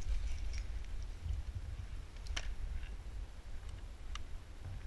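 Low rumble and handling noise from a first-person camera carried by a moving airsoft player, with a few sharp clicks, the loudest about two and a half seconds in and another near the end.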